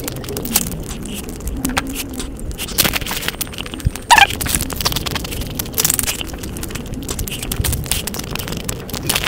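Close-miked eating sounds: chewing and crunching of crisp chaat (sev and puri), with wet mouth clicks throughout and a short, louder mouth sound about four seconds in.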